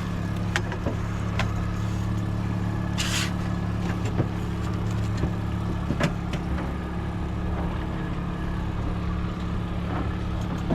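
Boat engine running steadily at trolling speed, a low, even drone. A few sharp clicks and knocks sound over it, with a brief hiss about three seconds in.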